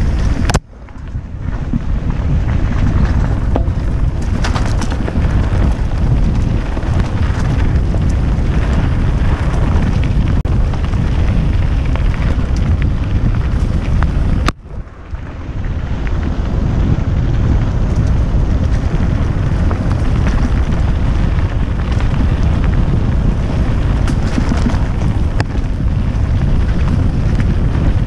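Wind buffeting a helmet-mounted GoPro Hero 5 Session's microphone, mixed with knobbly tyres rumbling over a dirt trail, as a Kona Dawg Deluxe mountain bike descends at speed. The roar drops out suddenly about half a second in and again about halfway, then builds back up.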